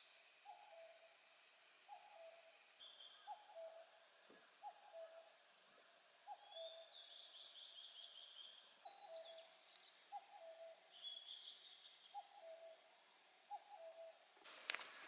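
A bird in the forest repeats a two-note call, the second note lower than the first, about once a second, while smaller birds chirp higher up. A sharp knock or rustle comes near the end.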